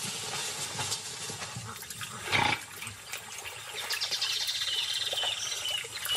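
Wild nature ambience of animal calls over a steady hiss. One short, loud sound comes about two and a half seconds in, and from about four seconds in there are high, descending chirping calls.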